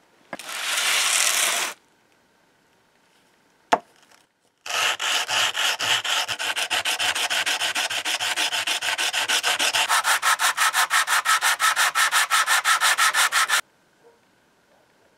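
A cast iron strike plate rubbed by hand on a sheet of sandpaper laid flat, to true its uneven edge. A short scrape comes first and a single knock about four seconds in, then a steady run of quick back-and-forth sanding strokes, about five a second, that stops suddenly near the end.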